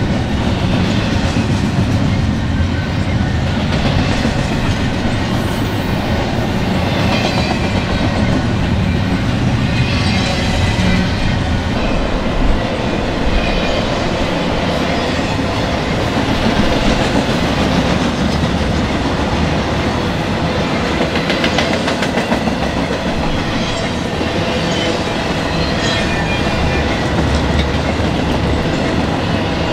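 BNSF intermodal freight train's double-stack container cars and trailer-carrying cars rolling past, steel wheels running steadily on the rails.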